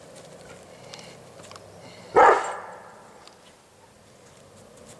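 A Bernese Mountain Dog barks once, short and sharp, about two seconds in, amid faint small clicks and rustles.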